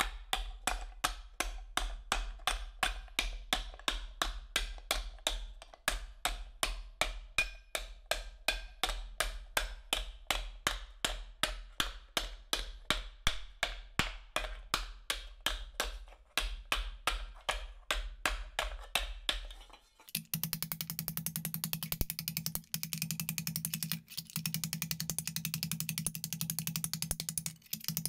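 Dog's head dishing hammer striking sheet metal held over a pipe stake, sinking it into a bowl with steady blows about three a second, with two short pauses. About twenty seconds in, the blows turn much faster and higher-pitched.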